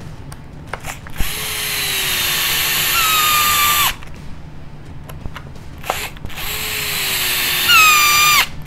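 A drill driving two screws into a plastic bulkhead, one after the other, each run building up and ending in a short squeal that falls in pitch. The squeal is the plastic whining as the screw thread cuts in, which the builder puts down to Lunsford screws having a slightly bigger thread diameter than steel ones.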